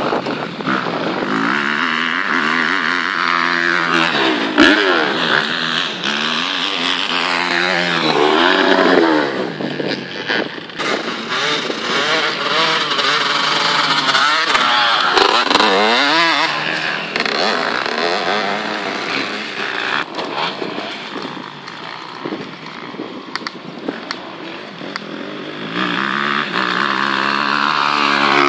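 Motocross bikes' engines revving up and dropping again and again as riders accelerate and shift. The sound swells as bikes pass close by and fades as they move off round the track.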